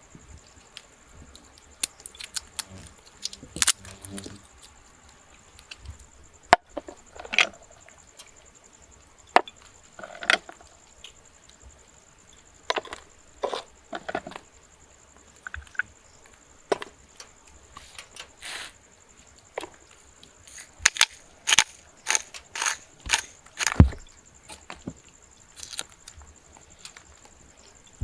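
Irregular sharp wooden knocks and cracks, like wood being chopped, coming every second or so and thickest near the end, with the heaviest thump about 24 seconds in. A steady high insect drone runs underneath.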